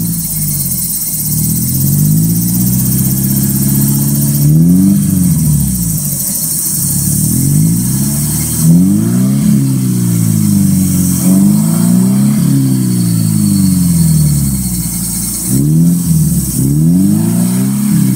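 Subaru Impreza GH2's 1.5-litre flat-four engine free-revving through an aftermarket Fujitsubo Authorize S exhaust while the car stands still. It climbs slowly in the first few seconds, then is blipped several times in quick succession, each rev rising and dropping back.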